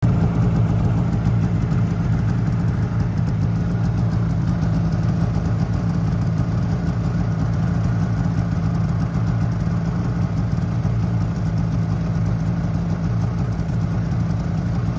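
Snowmobile engine idling steadily close by.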